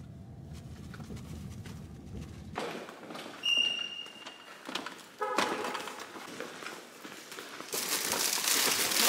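Low engine and road rumble inside a car for the first couple of seconds, then flip-flop footsteps slapping on a parking-garage floor. A short high beep sounds partway through, and a loud hiss rises near the end.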